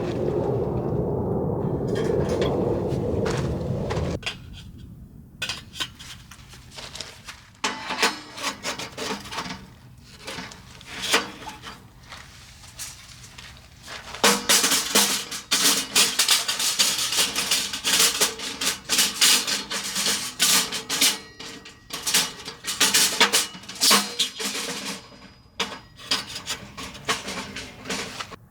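A steady rushing noise for about four seconds, then rubbing, scraping and clicking handling sounds, sparse at first and dense and louder from about halfway on.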